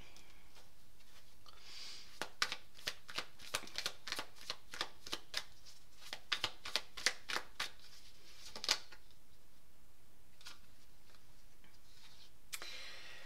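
A deck of oracle cards being shuffled by hand: a run of quick card slaps, a few a second, starting about two seconds in and stopping near the nine-second mark. A soft sliding rustle of cards follows near the end.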